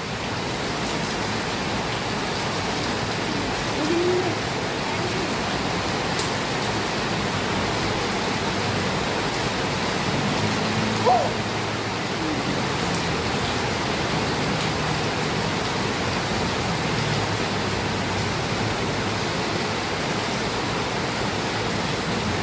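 Heavy rain pouring down in a steady, even rush, with a brief faint call from a distant voice about four seconds in and again near the middle.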